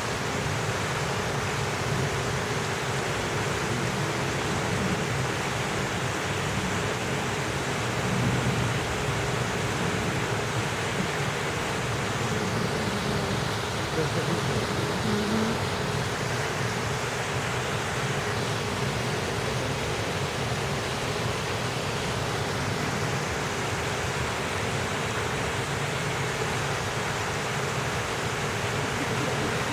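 Steady rushing outdoor noise with a faint murmur of people's voices in the background.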